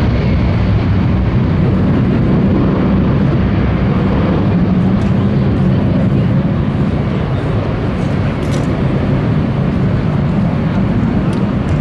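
Jet airliner engines making a loud, steady rumble, deep-heavy and unchanging, as an aircraft passes.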